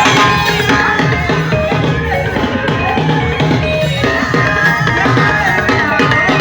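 Live band music with drums and percussion keeping a steady beat.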